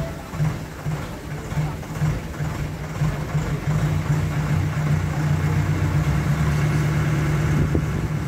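Diesel engine of a JCB mobile crane running while the crane holds a lifted load, choppy at first and settling into a steadier, slightly louder note about three seconds in.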